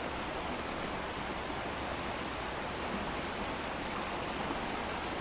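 Shallow mountain stream rushing over rocks in small rapids, a steady even noise.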